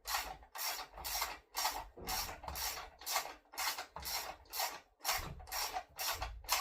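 Ratchet wrench with a 14mm socket ratcheting in quick back-and-forth strokes, about two a second, as a seat bolt is backed out after being cracked loose.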